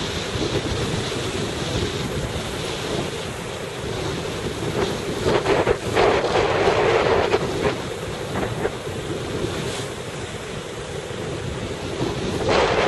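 Wind buffeting the microphone over the wash of sea and surf, with stronger gusts about five to seven seconds in and again near the end.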